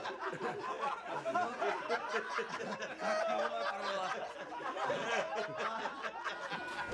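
People laughing.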